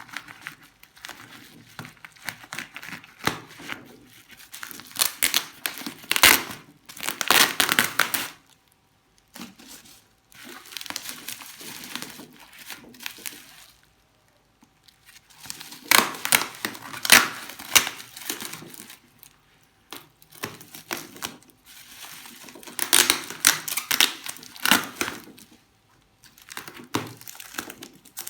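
Packaging being unwrapped by hand: wrapping crinkling and rustling with some tearing, coming in several spells with short pauses between them.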